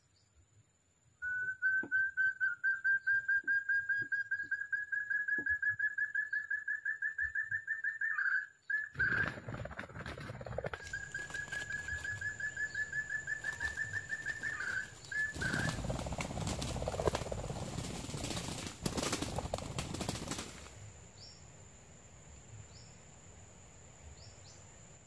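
A quail's rapid trilled call, a fast run of whistled pulses that rises slightly in pitch, heard twice: the call used to lure wild forest quail into snares. Loud rustling noise begins partway through, grows loudest after the second trill, then dies away.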